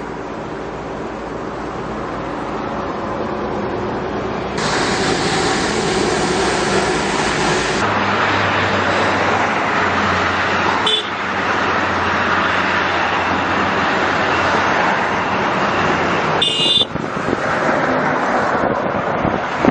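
Heavy lorries driving past in a convoy, engines and tyres running steadily as road traffic noise. The sound changes abruptly several times as the footage cuts between shots.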